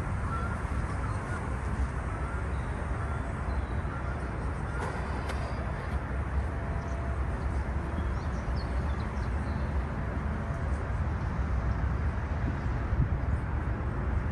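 Outdoor ambience: a steady low rumble with birds chirping faintly now and then.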